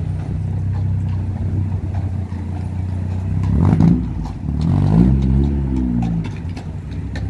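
Street traffic: a motor vehicle's engine running steadily close by, with a vehicle accelerating past in the middle, its engine pitch rising and then falling away.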